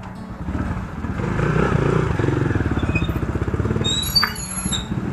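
Dirt bike engine running, getting louder about a second in. A few short high chirps come about four seconds in.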